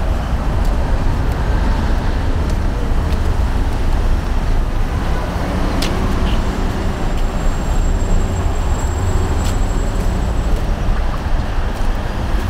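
City street traffic: a steady, continuous rumble of passing cars and buses.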